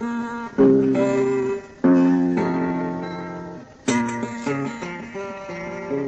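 Acoustic guitar playing an instrumental introduction: plucked chords that ring and fade away, with three louder chord attacks about half a second, two seconds and four seconds in.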